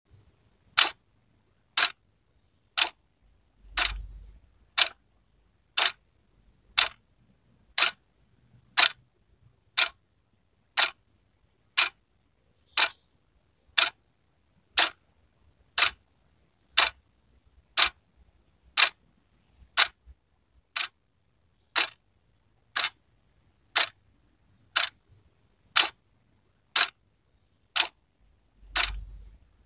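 Wall clock ticking steadily, one sharp click every second with silence between the ticks.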